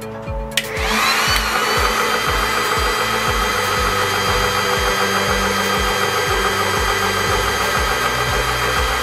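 TOPA 12V 300 bar PCP high-pressure air compressor switched on with a click about half a second in. Its motor whines up in pitch and then runs steadily as it starts filling a 0.25 L air cylinder.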